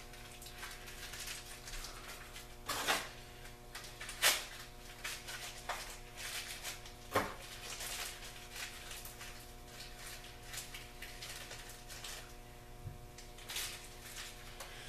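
Sharp knocks and light clicks of small hardware and parts being handled, with louder knocks about three, four and seven seconds in, over a steady low hum.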